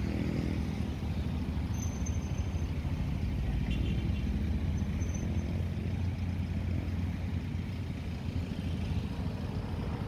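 Wind buffeting the microphone: a steady, fluttering low rumble.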